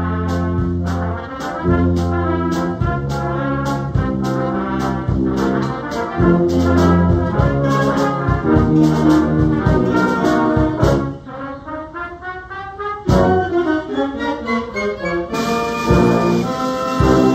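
Concert band playing: brass and woodwinds in sustained chords over rhythmic low-brass punches. About eleven seconds in the music drops to a quieter passage with sliding pitches, then the full band comes back in.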